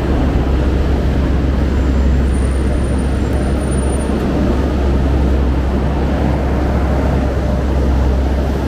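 Loud, steady outdoor noise with a heavy low rumble.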